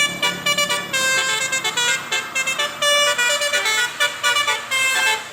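Bus telolet horn, a multi-tone modular air horn, playing a quick tune of short notes that jump between pitches. It starts abruptly.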